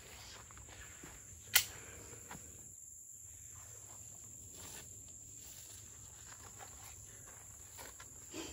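Footsteps in grass and a steady high insect chorus, broken about a second and a half in by one sharp click.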